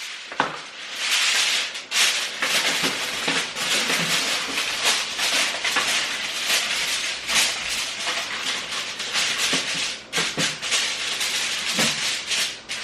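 Turkey bacon and potatoes frying in hot pans on the stovetop: a continuous sizzling with fine crackling.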